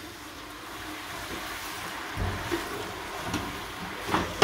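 Fresh molokhia (jute mallow) leaves sizzling in a hot stainless steel pot as they are stirred with a wooden spoon, giving a steady hiss with soft thumps, and a sharp knock of the spoon against the pot near the end.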